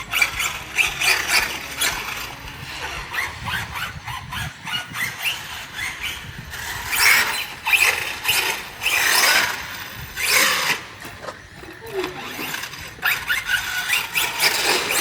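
Traxxas Sledge 6S RC monster truck running on belted tires, its electric motor whining in repeated short bursts as the throttle is blipped on and off.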